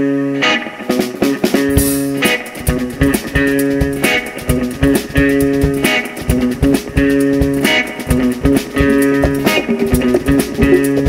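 Funk band playing live: a repeating electric guitar riff over bass guitar, with the drum kit and congas coming in under a second in and keeping a steady groove.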